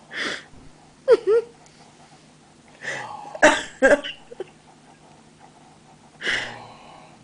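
A person coughing in short harsh bursts: one at the start, a throaty one about a second in, a cluster of several around three to four seconds, and one more after six seconds.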